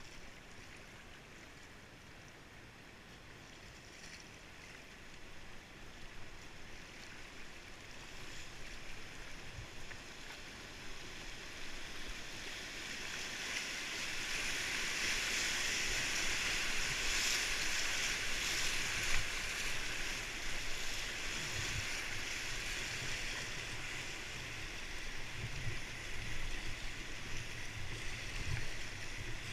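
Rushing whitewater of a river rapid. It grows steadily louder through the first half and is loudest around the middle, with scattered low thumps in the second half.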